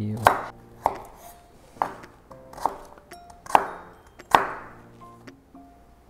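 A chef's knife chopping a peeled parsley root on a bamboo cutting board: six sharp chops, each under a second apart, the blade knocking the board on each stroke.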